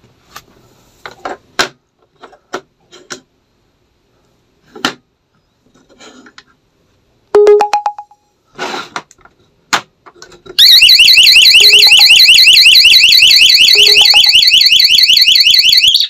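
Alarm siren wailing loudly with a rapid high warble, set off when a magnetic door contact is pulled apart, then cutting off abruptly near the end as the system is disarmed. Before it come scattered clicks and knocks of the sensors being handled and a short beep.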